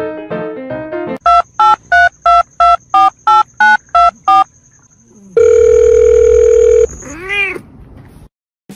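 Piano music breaks off, then a telephone sound effect: about ten short electronic beeps at roughly three a second, a steady tone for about a second and a half, then a short rising-and-falling cat meow that answers like a phone 'hello?'.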